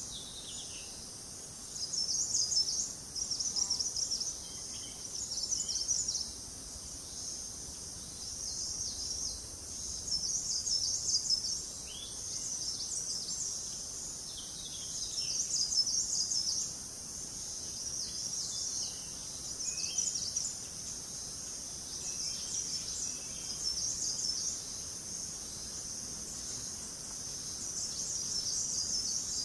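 Forest insect chorus: a steady high-pitched buzzing that swells into louder pulsing stretches every few seconds, with a few faint short bird chirps.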